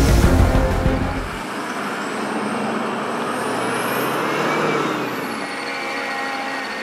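Oshkosh Joint Light Tactical Vehicle driving past on gravel: engine and tyre noise builds to a peak about four seconds in, with a high whine that rises and falls, then eases off.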